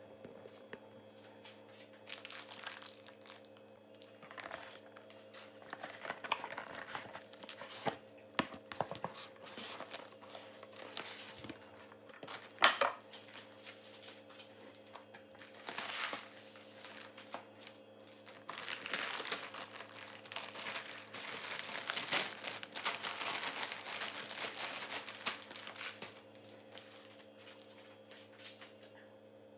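Plastic grocery packaging crinkling in irregular bursts as items are handled and lifted out of a box, busiest near the end, with one sharp knock about twelve seconds in. A steady low hum runs underneath.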